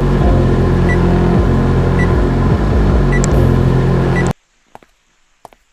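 Microwave oven running with a loud, steady hum that cuts off suddenly about four seconds in, followed by a few faint clicks.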